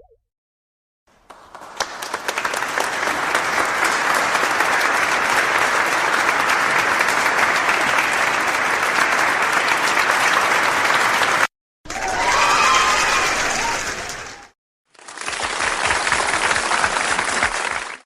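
Applause sound effects played back to back: a crowd clapping that builds over about a second and holds for about ten seconds before cutting off abruptly, then two shorter applause clips of two to three seconds each, separated by brief silences.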